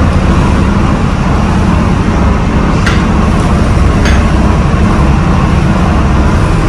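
A houseboat's engine running steadily, a low rumble heard from inside the cabin.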